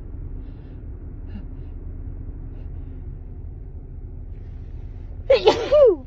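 A woman's single loud sneeze into a handkerchief near the end, sudden and falling in pitch, from an allergy-tickled nose. Before it there is only a low steady background rumble.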